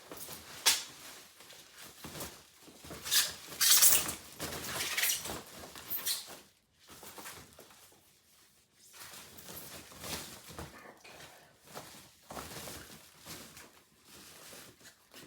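Packaging rustling and crinkling in irregular bursts as a new electric guitar is unwrapped, with a few sharp clicks; loudest about three to five seconds in, softer handling noise after that.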